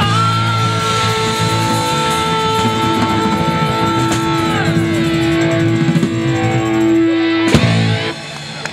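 Live rock band with electric guitars and drums finishing a song: held guitar chords ring out, a final hit comes about seven and a half seconds in, and the band stops just after.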